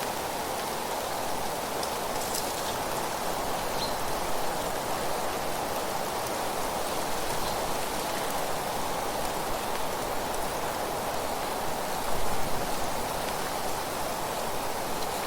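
Steady rustling hiss of wind through leaves, swelling briefly about twelve seconds in.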